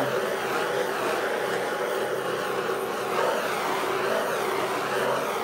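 Handheld gas torch burning with a steady roar as its flame is passed over wet acrylic pour paint.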